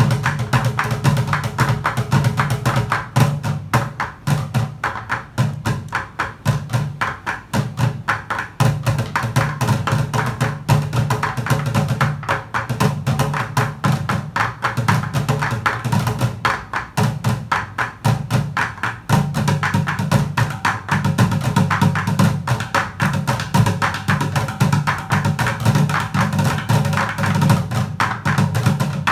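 Bucket drumming: five players beating drumsticks on upturned plastic buckets in a fast, steady rhythm, the low hollow tones of the bucket bottoms mixed with sharp stick clicks.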